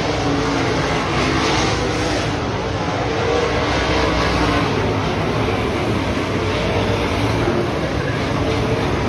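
A pack of dirt-track race cars running laps, their engines blending into a steady, loud drone with several pitches wavering as the cars go around.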